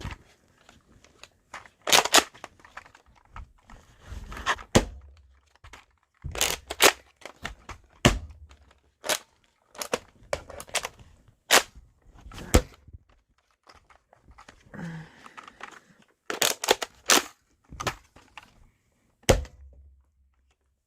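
Nerf Rival Roundhouse blaster being handled: an irregular series of sharp plastic clacks and snaps, more than a dozen, from priming, loading and firing.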